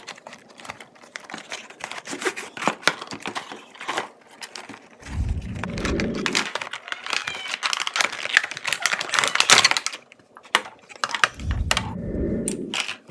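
Toy packaging being opened by hand: crinkling, crackling plastic and cardboard being pulled and torn, with many sharp clicks. Two dull low rumbles come through, about five seconds in and again near the end.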